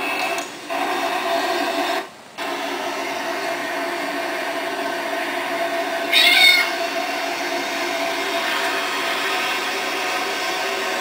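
A cat meows once, a short call about six seconds in, over a steady background hum.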